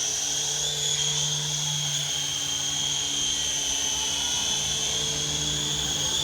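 Radio-controlled model helicopter in flight: a steady high whine from its motor and rotor, holding the same pitch throughout.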